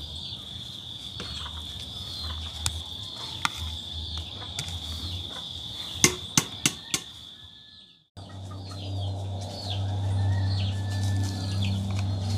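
Outdoor yard sounds: a steady high insect drone with many short falling chirps from birds or fowl, and a few sharp knocks about six to seven seconds in. The sound cuts out suddenly about eight seconds in, then comes back with a low rumble under the chirps.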